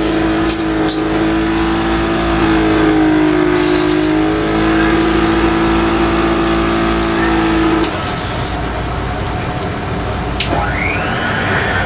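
Home airway-clearance machine used in SMA respiratory therapy, running with a steady buzzing hum that cuts off suddenly about eight seconds in, leaving a rushing noise.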